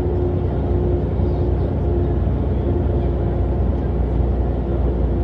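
Mercedes-Benz O405NÜ bus running, a steady low engine rumble with a faint steady whine above it.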